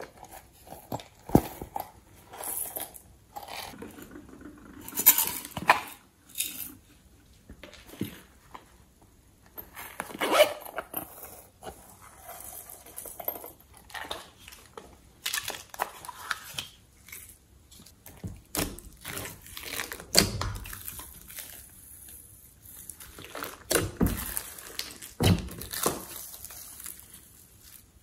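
Close-up handling sounds of slime-making: a small zippered pouch opened and emptied, sequins and glitter dropped into a tray, and thick slime lifted over them. Irregular rustles, taps and clicks come one after another with short pauses between.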